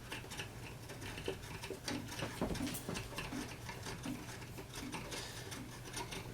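Y-axis leadscrew of a mini mill being turned by hand and threaded out of its nut: faint, fairly even metallic ticking and clicking.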